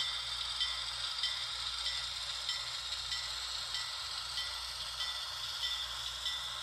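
Sound of a Rapido HO-scale 44-ton switcher model: its diesel engine running steadily while its bell rings evenly, about one and a half strikes a second.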